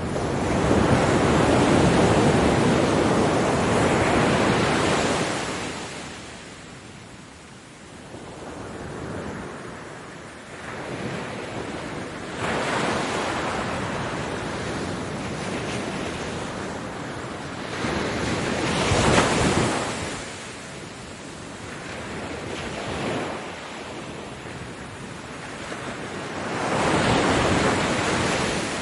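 Ocean waves breaking and washing up a beach in repeated surges. The biggest wave crashes right at the start and runs for several seconds. Smaller surges follow, a sharp crash comes at about two-thirds of the way, and another swell arrives near the end.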